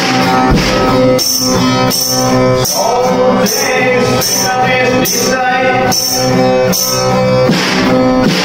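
Music: an acoustic guitar strummed, with a steady beat of high percussion hits about every two-thirds of a second.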